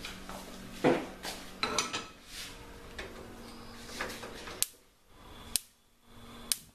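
A small non-stick frying pan clatters onto a gas hob's grate about a second in. From past the middle, sharp single clicks come about once a second from the hob's spark igniter lighting the burner under it.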